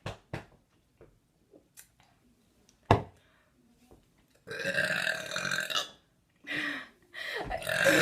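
A young woman burping after gulping soda: one long drawn-out burp lasting over a second about halfway through, a short one after it, and another starting just before the end. A single sharp knock comes about three seconds in.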